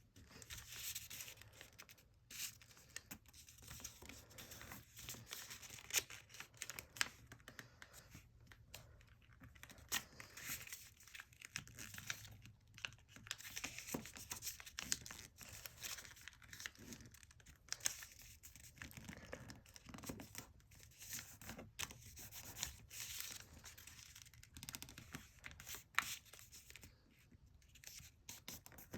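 A sheet of origami paper being folded and creased by hand: faint irregular crinkling and rustling, with a sharper crackle here and there as a fold is pressed flat.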